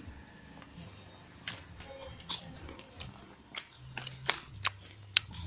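A string of irregular sharp clicks and crackles, coming faster and louder toward the end, with the sharpest about five seconds in. A low steady hum comes in near the end.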